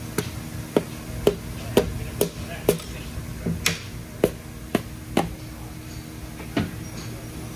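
Sharp metal clicks, about two a second for five seconds and then one more, as the connecting rods on the crankshaft of a small-block Ford short block are handled.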